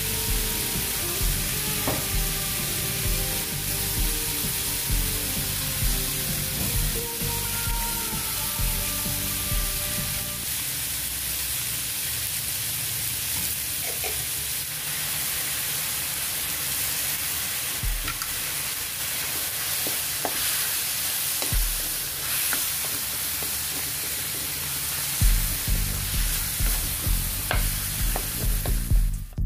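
Tomatoes and onions sizzling in oil in a metal wok, with a spatula stirring and scraping against the pan in quick, uneven knocks. The stirring stops about a third of the way in, leaving the steady sizzle and a few light clicks, and starts again near the end.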